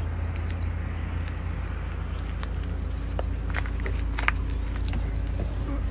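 Royal Enfield Bullet motorcycle's single-cylinder engine running steadily at low speed, a deep even thump, with a few faint high chirps and small clicks over it.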